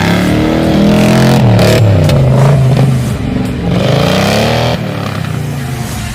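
Off-road 4x4's engine revving hard, its pitch climbing and falling twice as it is pushed through the course. The engine eases off near the end.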